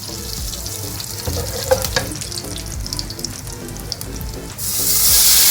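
Hot oil sizzling with a few clicks of a utensil in the pan. About four and a half seconds in, a loud, steady sizzling hiss starts as the liquid kadhi mixture is poured into the hot oil.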